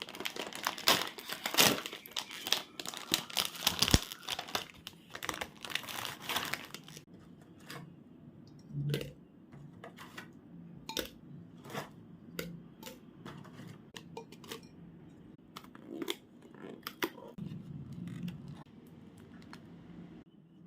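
Plastic snack packaging crinkling and tearing for the first seven seconds or so, then a string of separate clicks and light knocks as packets and items are handled.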